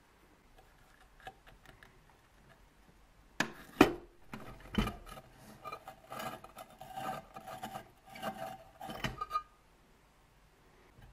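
Screwdriver and metal parts of an old electric hotplate being worked as its rusty cast-iron top is unscrewed and taken off: a few sharp metal knocks about three and a half seconds in, then about four seconds of scraping and clinking metal with a little ringing.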